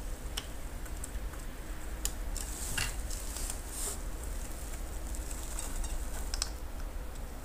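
Small clicks and rattles of 3D-printed plastic parts being handled by gloved hands as a model cannon is set up and a small round is pushed into its breech. A steady low hum runs underneath.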